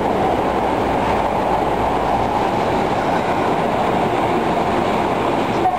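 Osaka Municipal Subway train entering an underground station platform at speed, its wheels on the rails making a loud, steady rumble as the cars run past.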